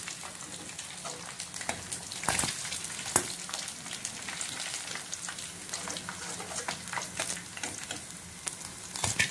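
Hot oil sizzling and crackling around deep-fried chicken, with many small pops and two sharper clicks about two and three seconds in.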